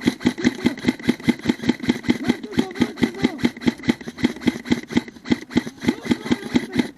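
Quick, regular thuds, about five or six a second, of a player running in airsoft gear, with the gear jolting against the camera and bursts of heavy breathing.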